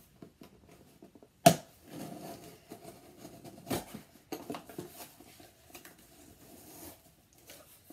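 A cardboard shipping box being opened by hand: the tape picked at and torn, then the flaps pulled apart with scraping and rustling of cardboard. Two sharp cracks stand out, the louder about a second and a half in and another near four seconds.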